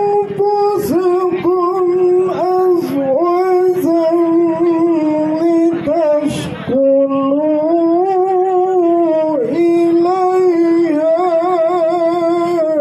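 A man chanting Qur'an verses in melodic tilawah style: long held notes that glide between pitches, with wavering ornaments and short pauses for breath.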